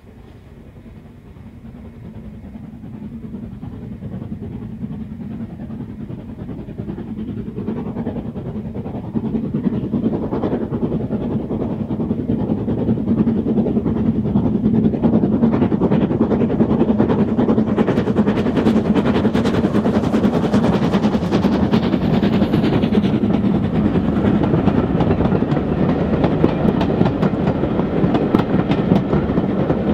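Steam locomotive hauling a train, its exhaust beats and wheel clatter growing steadily louder as it approaches over the first fifteen seconds or so, then staying loud as it passes.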